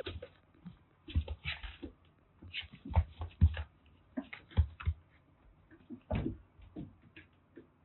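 Irregular soft thumps and scuffling of kittens moving about and playing in a small room.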